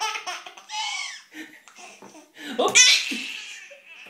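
Baby laughing in repeated bursts, the loudest peal about three seconds in.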